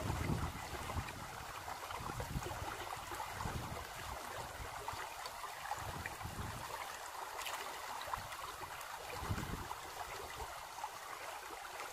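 Steady background sound of running water, like a flowing stream, with irregular low rumbles.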